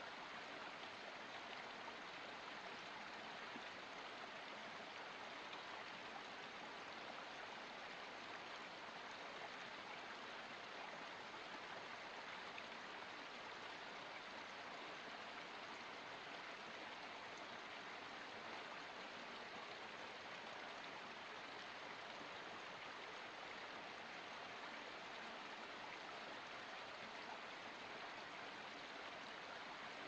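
Small creek running over rocks in a small cascade: a steady, even rush of water.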